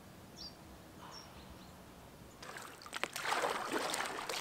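A quiet lake with two faint bird chirps. About halfway in, water starts splashing and sloshing, with knocks, from a paddle working in the water beside an inflatable boat.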